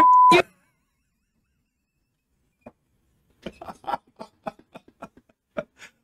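A short electronic beep, one steady tone lasting about a third of a second and ending in a click. After it the sound drops out, and over the last few seconds come faint, irregular short clicks and soft sounds.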